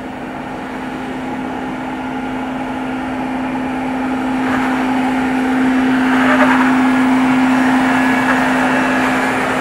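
2024 Jeep Wrangler 4xe Rubicon X crawling over sandstone: a steady, even-pitched drone that grows louder as the vehicle comes close and passes.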